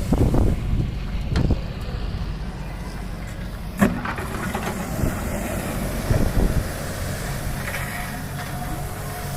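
Heavy diesel engine of an excavator loading a dump truck, running steadily, with several dull clunks and one sharp bang about four seconds in.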